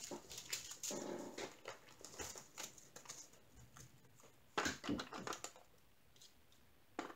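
Small plastic zip bags of diamond painting drills crinkling and rustling in the hands, with scattered light clicks and taps, most of them about a second in and again near five seconds.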